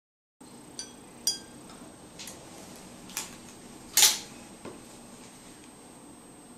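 Light clinks and taps of wooden popsicle sticks being set across the rims of drinking glasses, about six in all, the loudest about four seconds in; one near the start leaves a brief glassy ring.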